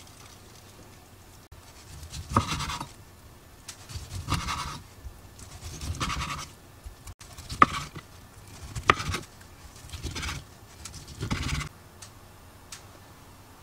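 Kitchen knife slicing through a sausage gimbap roll (seaweed-wrapped rice) on a wooden cutting board: about seven short scraping cuts, roughly one every second and a half, some with a sharp knock of the blade on the board. The cutting stops near the end.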